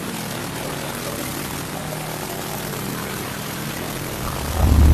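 Fiber laser cleaning machine running as its beam scans a pocket watch's glass: a steady hiss with a faint low hum. A louder low rumble comes in near the end.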